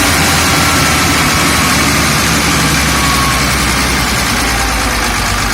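Heavy machine's engine idling steadily, a loud continuous low drone.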